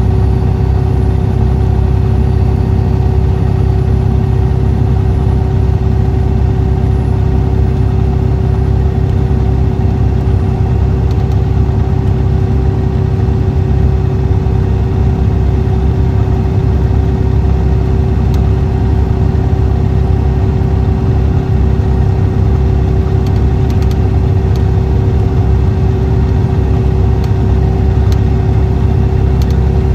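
Motor Coach Industries D4500CT coach's Cummins ISX 11.9-litre six-cylinder diesel running steadily: a heavy low rumble with a steady mid-pitched hum, no change in engine speed.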